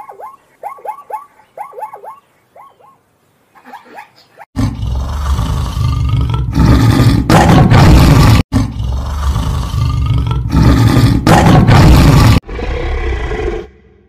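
A tiger roaring loudly in long, repeated roars from about four seconds in, with a brief break midway. Before it come a few seconds of short repeated animal calls, and near the end a quieter growl.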